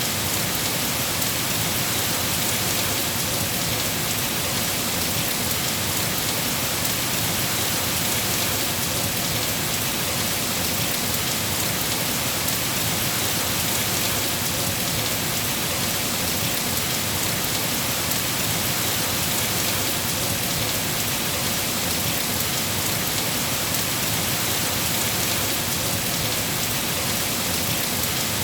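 Steady rain falling, a dense, even patter of drops that holds at the same level throughout.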